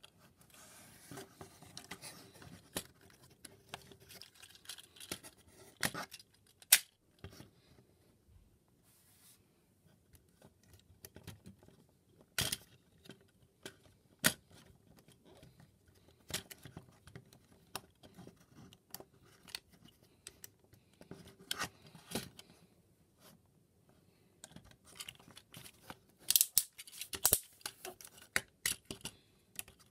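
Plastic parts of a Transformers Siege Ultra Magnus action figure clicking, snapping and scraping as it is handled and pulled apart by hand: irregular sharp clicks with small rustles between them, and a quick run of louder snaps near the end.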